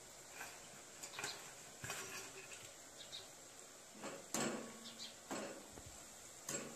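Potato pieces sizzling faintly in hot oil in a steel kadai during their second fry for crispness, with a wire spider strainer scraping and clinking against the pan a few times, loudest about four seconds in.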